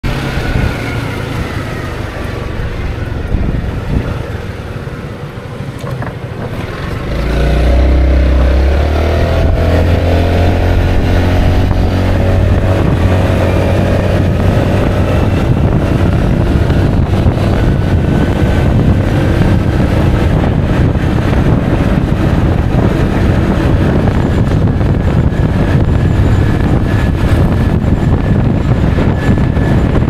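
Honda Forza 350 scooter's single-cylinder engine pulling away about seven seconds in, its note rising as it accelerates, then cruising steadily under heavy wind noise on the camera's microphone.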